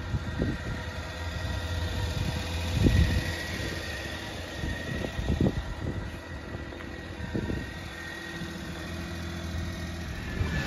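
Small kei-truck engine idling steadily, with a few soft knocks scattered through.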